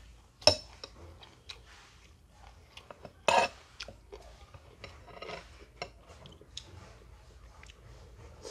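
Metal utensil and chopsticks clinking and knocking against a ceramic soup bowl, with a sharp knock about half a second in and a louder one a little after three seconds, and small clicks between. Near the end, noodles are lifted and eaten.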